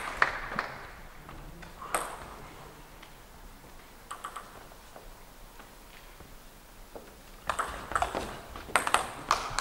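Table tennis ball clicking off the table and bats: a few lone bounces while the server gets ready, then a quick rally of sharp ticks near the end. Crowd noise is fading away at the start.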